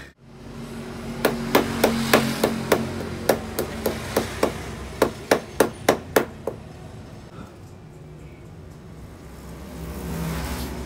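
Small hammer tapping on metal at a workbench: a quick run of about twenty sharp taps, roughly three to four a second, that stops about six and a half seconds in, leaving a low background hum.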